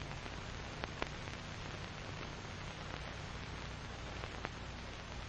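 Steady hiss and low hum of an old film soundtrack, with a few faint crackles and pops.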